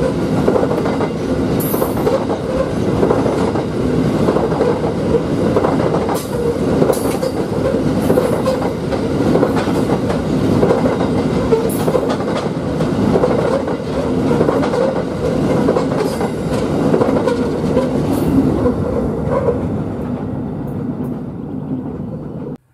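Loaded narrow-gauge grain hopper wagons rolling past, with a steady rumble and wheels clattering over the rail joints, and a few short high wheel squeals. The sound eases slightly as the last wagons go by, then cuts off suddenly near the end.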